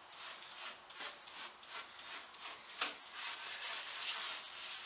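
Steel wool scrubbing the edge of a cherry tabletop in quick back-and-forth scratchy strokes, about three a second, lifting the old finish softened by chemical stripper.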